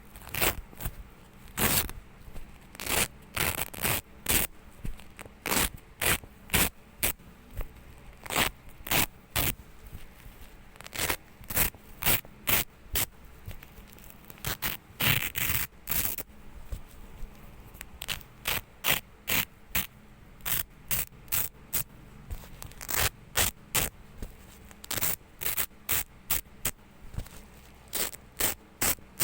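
Velcro (hook-and-loop) tape being pulled apart again and again, short ripping strokes one after another in uneven runs, with one longer rip about fifteen seconds in.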